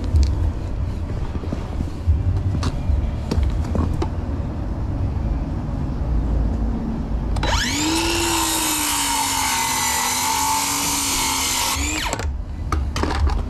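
Low rumble and scattered knocks as he walks on asphalt. About halfway through, a cordless power tool's motor whirs up quickly to a steady whine, runs for about four seconds, then stops.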